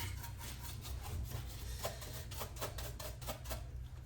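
Repeated quick rubbing strokes of hand cleaning on a key cutting machine's parts, over a low steady hum.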